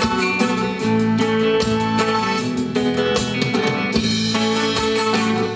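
Live rock band playing: a drum kit keeping a steady beat under electric and acoustic guitars.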